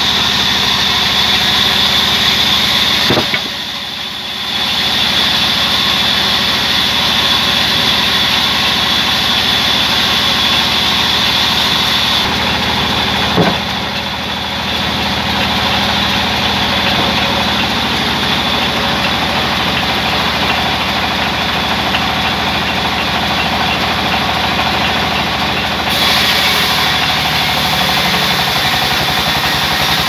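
A large belt-driven sawmill band saw runs steadily while a long log is fed through it, sawing the timber. Its steady high whine runs over the machine's drone, with two brief knocks.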